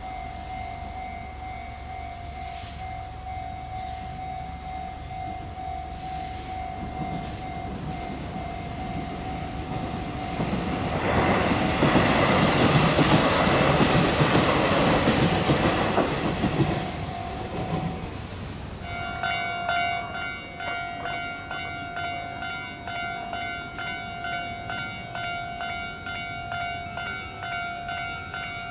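A Hanshin Railway train passing over a level crossing, loud for about six seconds near the middle, while the crossing's warning bell rings. The bell's tone changes about two-thirds of the way in to a clanging about once a second.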